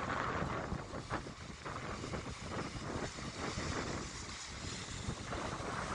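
Wind buffeting the microphone: a continuous rush of noise with an uneven low rumble.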